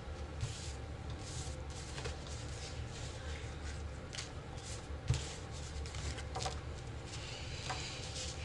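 Rook playing cards being handled and laid on a table: scattered soft slaps and rustles, with one sharper knock about five seconds in, over a steady low hum.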